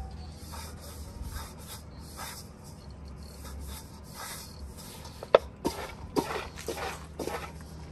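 Hands rubbing and crumbling damp fermented maize flour in a metal basin: a soft, repeated rasping rustle. From about five seconds in, several sharper, louder short sounds come in over it.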